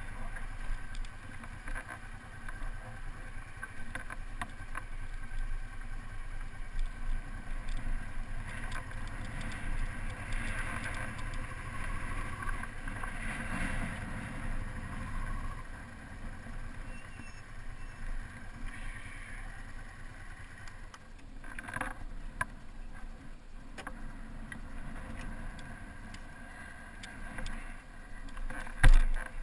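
Honda motorcycle ridden at low speed, a steady engine and road-noise rumble. A couple of loud knocks come near the end.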